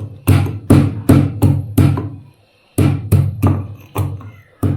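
Stone pounding on a grinding stone, crushing ginger, garlic, cumin and black pepper: about a dozen sharp, heavy strikes at roughly three a second, with a brief pause about halfway.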